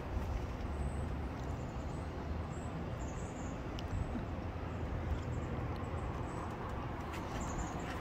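Steady, low outdoor background rumble with no distinct events.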